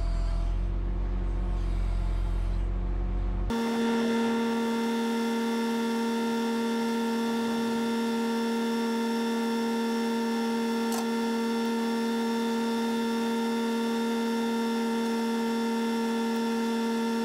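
Utility bucket truck running: a deep, steady engine rumble, then a few seconds in a sudden switch to a steady, even-pitched mechanical whine that holds to the end.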